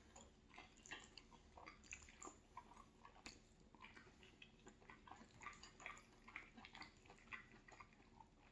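Faint eating sounds at the table: small irregular clicks and taps, a few a second.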